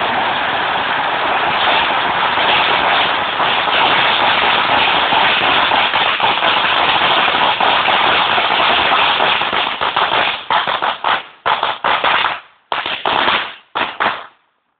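A long string of Black Cat firecrackers going off in a loud, dense, continuous crackle. About ten seconds in it thins into scattered separate bangs, which stop shortly before the end as the last crackers burn out.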